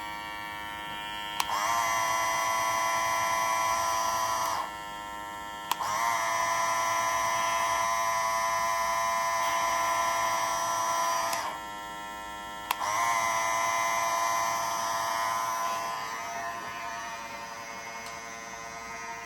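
Cordless hair clippers buzzing: one runs quietly the whole time while a louder clipper is switched on with a click and off again three times, running for a few seconds each time.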